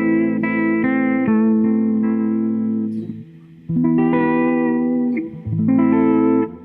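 Fender Jazzmaster (AVRI '62) on its bridge pickup through a Fender Twin Reverb amp, with compression and a modulation effect, playing a run of held chords that change about every second. The sound breaks off briefly a little past three seconds before the playing resumes.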